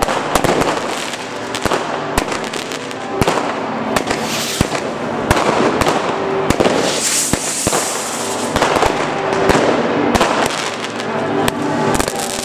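Fireworks going off close by: a dense, irregular run of sharp bangs and crackling from rockets and ground-level pyrotechnics.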